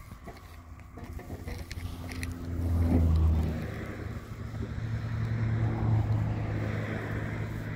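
A motor vehicle's engine running nearby, a steady low hum that swells about three seconds in and again around six seconds.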